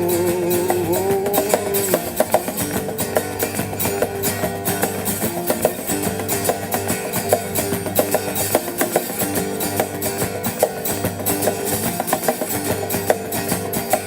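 Music: a rock duo's guitar and drum kit playing an instrumental passage with a steady beat. A held sung note ends in the first second or two.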